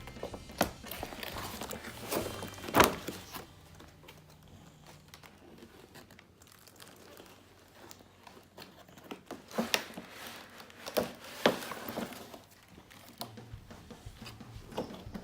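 Plastic toy packaging being handled and opened, crinkling and rustling with sharp crackles, loudest about three seconds in and again around ten to twelve seconds in.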